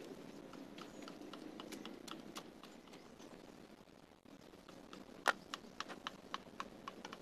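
Faint outdoor background noise with scattered light clicks and taps. About five seconds in, the taps come more often and louder, the first one the sharpest.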